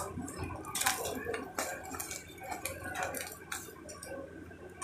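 Metal spatula tapping and scraping on a large flat griddle (tawa) as egg parathas fry, in a series of irregular metallic clicks and scrapes.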